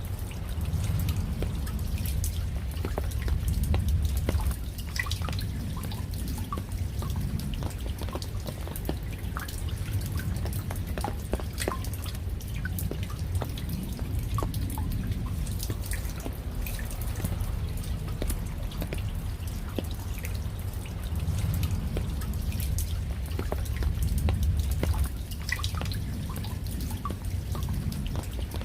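Rain, with individual drops dripping and tapping irregularly over a low rumble that swells and fades twice.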